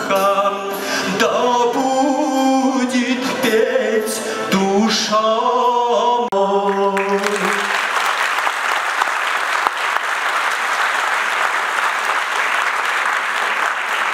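A man singing a long vocal line into a microphone, his pitch bending and wavering. The singing ends about halfway through, and audience applause breaks out at once and keeps going steadily.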